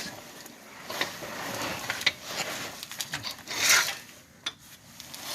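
Hand-tool work on a car's rear suspension: irregular scraping and rubbing with scattered clicks of metal, and a short louder hiss about two-thirds of the way through.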